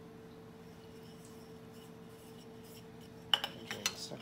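A steady faint hum, then about three seconds in a quick run of sharp clicks and knocks as an aluminium honeycomb panel is handled and set against a jig on a metal drill-press table.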